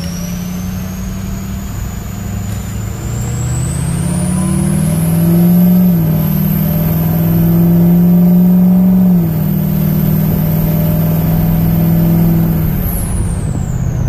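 Ford 6.0 Powerstroke V8 turbo diesel accelerating, heard from inside the cab, with the whistle of its KC 10-blade turbo climbing to a very high, piercing pitch, holding, then falling away as the throttle comes off near the end. Under it the engine note rises and steps down twice, as the transmission shifts up.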